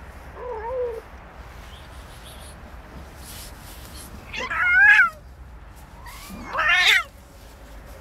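Domestic cat yowling while a tomcat mounts a female and grips her by the scruff: a low wavering moan near the start, then two loud, drawn-out yowls about two seconds apart, the second sweeping up from low pitch.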